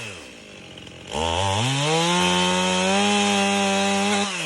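Two-stroke chainsaw trimming tree limbs: its engine drops off to idle at the start, then is throttled back up about a second in, runs at high revs, and drops off again near the end.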